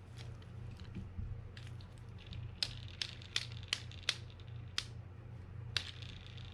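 Small sharp clicks and ticks, about seven spread over a few seconds, from handling fishing reel parts during reassembly, over a steady low hum.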